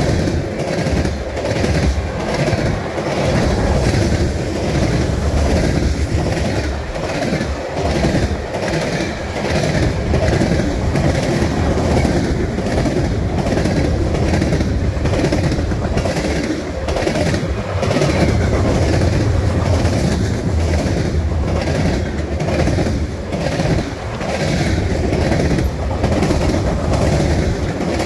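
Freight cars of a mixed train (covered hoppers and tank cars) rolling past: a steady, loud rumble of steel wheels on rail, with repeated clacks as the wheels cross the rail joints.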